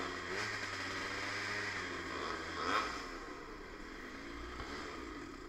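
Yamaha DT50's small two-stroke engine running, its pitch wavering up and down, with a brief louder burst about three seconds in.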